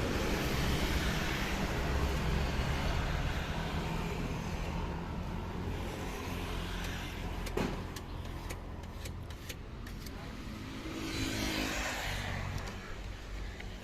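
A motor vehicle's engine running, its sound slowly fading over the first several seconds and swelling again near the end. A few sharp clicks come in between.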